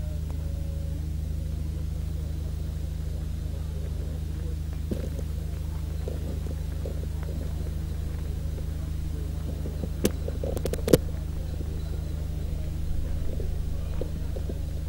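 A steady low hum, with a few sharp knocks about ten to eleven seconds in.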